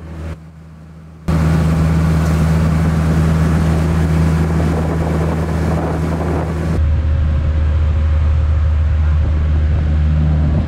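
Motorized outrigger boat under way: a steady engine drone under a loud rush of wind and water. The sound is quieter for about the first second, then jumps up, and its character changes a little past halfway as the shots cut.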